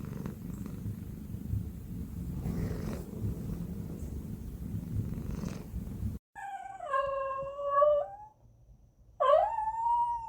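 A cat purring steadily in a low, pulsing rumble. After a sudden cut about six seconds in, another animal gives two long, wavering cries, the first falling in pitch and the second rising then falling.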